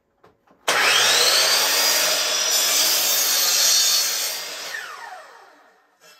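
Bosch sliding miter saw starting up with a rising whine and cutting a 45-degree angle through a wooden 1x2. The motor is then switched off, and the blade winds down with a falling whine over about two seconds.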